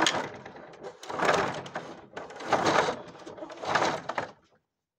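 Old wooden roller shutter moving on its roller, rattling in four surges about a second apart that stop shortly before the end. This is a test run after its broken roller straps were replaced.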